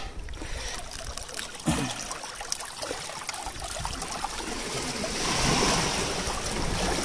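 Sea water washing and trickling among shore rocks, swelling with a passing wash about five seconds in.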